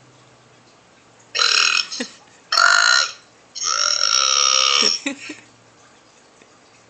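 A person belching out letters of the alphabet: three loud belched syllables, about a second apart, the third drawn out for over a second.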